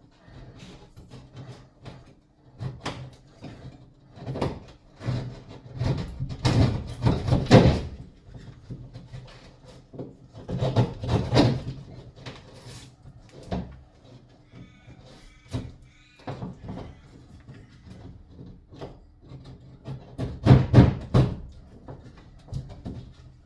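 A steak knife sawing and scraping to enlarge a hole in a shower wall panel: irregular rasping strokes in runs, with the loudest bursts about a third of the way in, near the middle and near the end.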